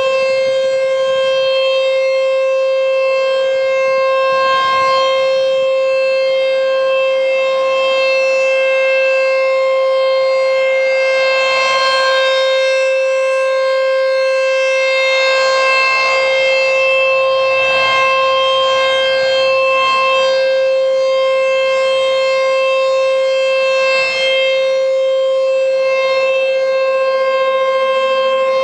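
American Signal T-128 rotating outdoor warning siren sounding a steady tone during a siren test, holding one pitch with no wind-up or wind-down. The sound swells and fades about every four seconds as the head turns.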